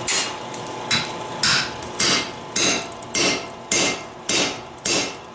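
Hand hammer striking a steel punch held on a red-hot steel bar on the anvil, punching a hole: about ten evenly paced blows, just under two a second, each with a short metallic ring.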